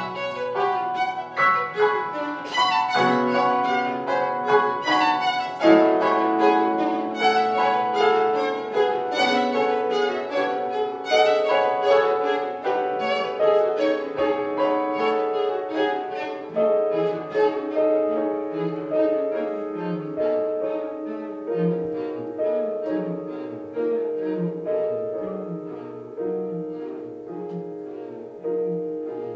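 Piano trio playing: violin and cello bowing held notes against struck piano notes and chords. In the second half the texture thins to sustained string notes over a low figure that repeats about once a second, and the music gradually gets quieter.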